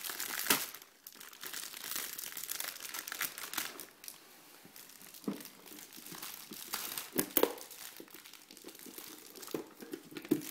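Shiny gift wrapping crinkling and rustling as a present is unwrapped by hand, in irregular crackles, loudest about half a second in and again about seven seconds in.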